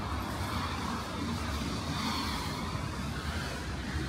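Road traffic on a wet city street: a car passing, its tyre noise on the wet road swelling and fading over about two seconds above a steady low traffic rumble.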